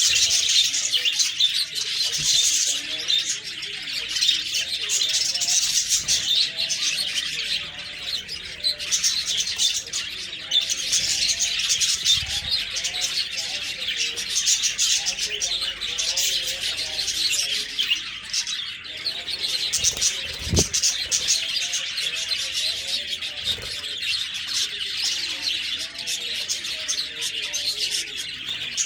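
Several budgerigars chirping and warbling continuously in dense, overlapping twitters. A brief low thump comes about twenty seconds in.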